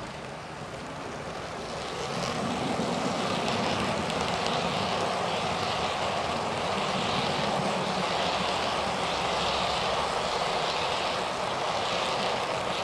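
OO gauge model passenger train running on unballasted track, heard through a microphone lying on the rails: the bare mechanical noise of motor and wheels on rail, with the locomotive's sound unit switched off. It grows louder about two seconds in as the train draws near, then runs steadily.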